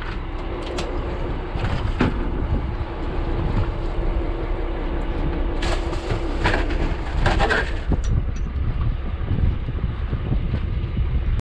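Boat engine running under wind noise on the microphone, with several knocks and thumps, about one, two, six and seven seconds in, as a landed king mackerel hits the boat and the fish box.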